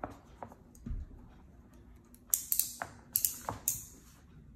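Cardboard envelope handled on a tabletop: a few light taps and a soft thump in the first second, then a quick run of sharp, crisp scrapes and taps from about two to four seconds in.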